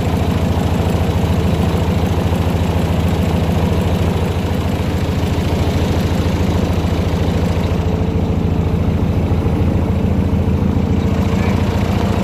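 Airboat engine idling steadily, a low even throb with a fast regular pulse.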